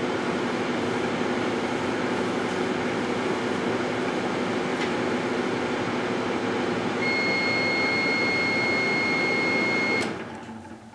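Microwave oven running with blackberries inside, a steady hum and drone. About seven seconds in, a steady high tone joins for about three seconds. About ten seconds in, a click: the oven shuts off at the end of its cooking cycle and the hum dies away.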